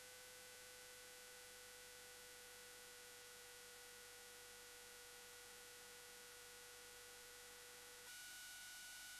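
Near silence: faint steady electronic hum and hiss with a few thin steady tones, no engine or road noise. The tones change abruptly about eight seconds in.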